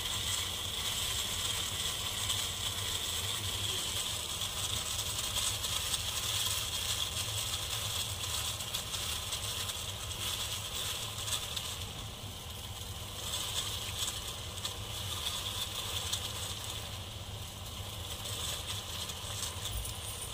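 A pot of herbal decoction (water with ginger, black pepper and tulsi) boiling steadily on the stove, a dense continuous bubbling crackle as it is reduced down to half.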